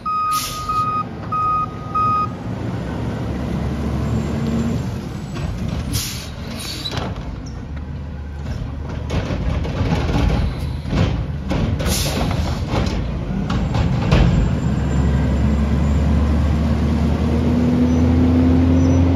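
Garbage truck's reversing beeper sounding a steady run of beeps that stops about two seconds in, over the truck's engine running. Several short hisses from the air brakes follow, and near the end the engine speeds up with a rising pitch as the truck pulls away.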